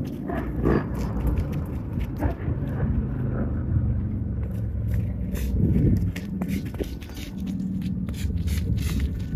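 Quick, short touches of a soccer ball with the outside of the foot and footsteps on grass, as a player dribbles through cones. The touches come as a run of light taps, thicker in the second half, over a steady low rumble.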